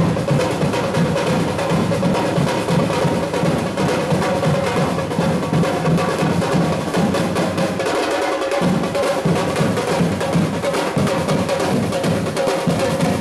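Drumming: fast, continuous snare-drum rolls with bass drum beats.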